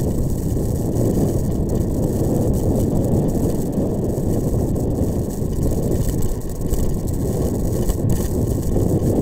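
A vehicle travelling along a gravel road: a steady low rumble of tyres on gravel and running noise.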